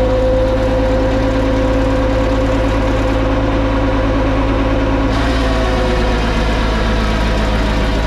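Sany SY35U mini excavator running steadily, with a steady whine from its hydraulics driving the VMC mower deck.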